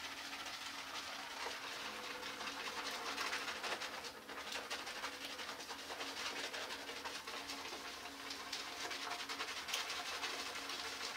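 Shaving soap lather being worked between wet hands: a steady soft squishing with fine crackling of the foam.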